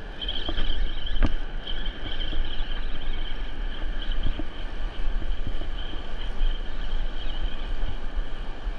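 Wind buffeting the microphone: a steady, loud rumble. A thin, steady high-pitched tone runs over it, and there is one sharp click about a second in.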